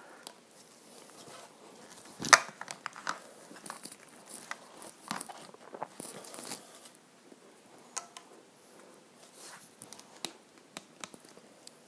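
Hard plastic clicks, knocks and scraping as PVC pipe fittings are pressed by hand onto lengths of PVC pipe, without cement. It comes in scattered short strokes, with the sharpest knock about two seconds in.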